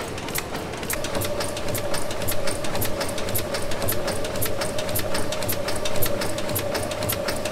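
1904 Sulzer tandem-compound steam engine running steadily: a rapid train of sharp mechanical clicks from its moving parts, several a second, over a low hum. A steady high tone comes in about a second in.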